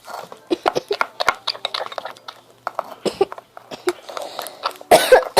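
A spoon clicking and scraping in a bowl as flour-and-shampoo slime is stirred, with voices from a television in the background. Near the end there is a loud burst, then a voice that falls in pitch.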